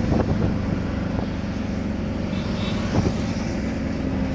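Auto-rickshaw engine running steadily on the move, with road noise, and a single short knock about three seconds in.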